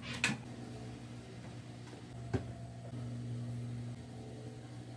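A wooden wardrobe door clicking shut, followed about two seconds later by one more sharp knock, over a steady low hum in a small room.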